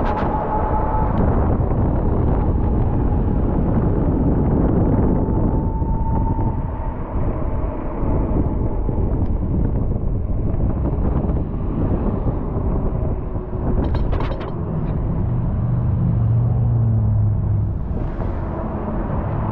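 Steady wind-and-road rumble while riding an e-bike in city traffic, with motor vehicles going by; a vehicle's low engine hum swells about three-quarters of the way through.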